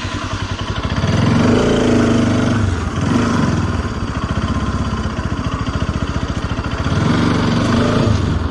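Bajaj Pulsar RS200's single-cylinder engine running just after being started, with an even firing beat. The revs rise about a second in, ease off through the middle and rise again near the end.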